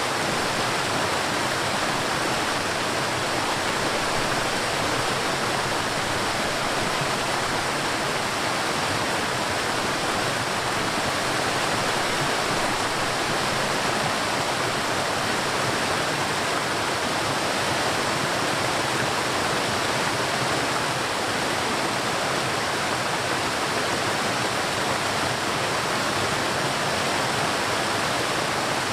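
River water flowing, a steady rushing hiss that never changes.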